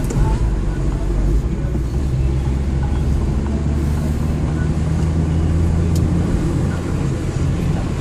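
Car engine running steadily with tyre and road noise, heard from inside the cabin while driving.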